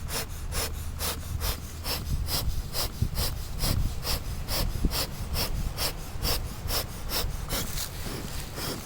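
Bee smoker's bellows pumped steadily, puffing air through the smouldering straw fuel at about two puffs a second to get the fire going.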